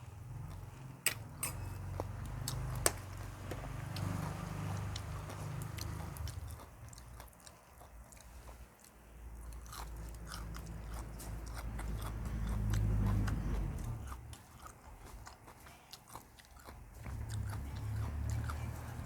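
A person eating close to the microphone: chewing with many crisp crunches and clicks, as of raw vegetables such as sunflower sprouts eaten with som tam.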